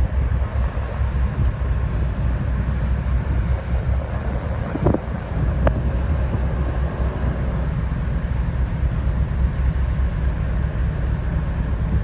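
Steady low rumble of a large car ferry's engines and propellers churning the water as the ship turns, with wind buffeting the microphone on the open deck. A brief sharper sound rises above it about five seconds in.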